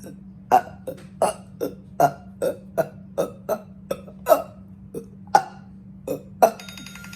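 Rapid, deliberate burps on command, short and separate at about two to three a second, pushed out as fast as possible against a one-minute count. Near the end a timer alarm starts sounding with a steady beeping tone.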